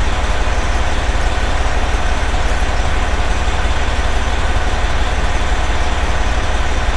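Detroit Series 60 diesel of a 2010 Pierce Velocity fire engine idling, heard from inside the cab as a steady low rumble.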